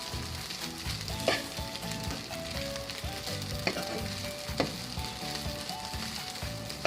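Food sizzling in hot oil in a frying pan, a steady hiss, with three sharp clicks about a second in, past three seconds, and near five seconds.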